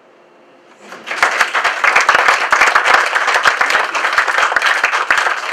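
Audience applauding at the end of a fiddle tune, a dense patter of many hands clapping that starts about a second in after a brief quiet.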